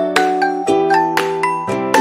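Light instrumental background music of plucked and bell-like notes, struck in a quick, even rhythm.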